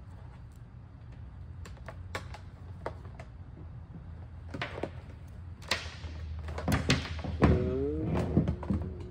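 Small plastic clicks from a power extension cable connector being handled and plugged together, then louder scraping and a few squeaks as the connector and wire are pushed into the hole in a plastic skeleton head near the end.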